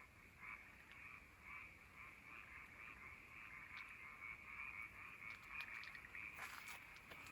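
Faint chorus of frogs calling steadily from the water, with a few light clicks near the end.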